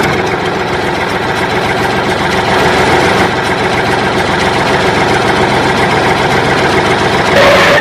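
Small engine of a homemade mini tractor running steadily with a fast, even chugging, a little louder near the end.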